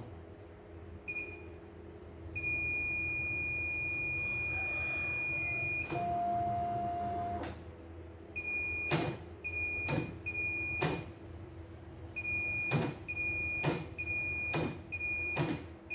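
CNY E900 embroidery machine's control panel beeping as its keys are pressed: a short high beep, one long beep of about three seconds, a briefer lower tone, then a string of short beeps with sharp key clicks among them.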